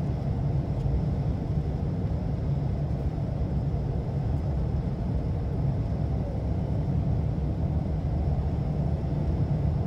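Steady low rumble of road and engine noise heard inside a car's cabin while driving on a highway.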